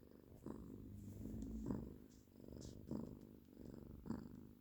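A sleeping hairless cat and Yorkshire terrier snoring faintly, with a soft rasp on each breath about every second and a bit.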